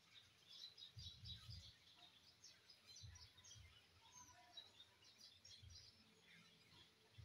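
Near silence: faint, scattered high-pitched chirps, with a few low muffled thumps.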